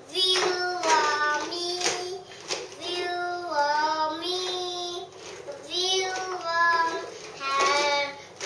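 A high voice singing wordless phrases of long held notes that slide up and down in pitch, with short breaks between the phrases.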